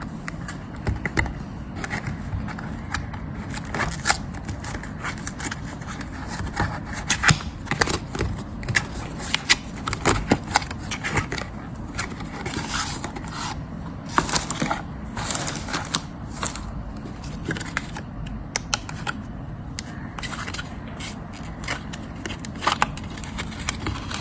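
A present's packaging being opened by hand: irregular scraping, scratching and sharp clicks, with several louder clusters, over a steady low hum.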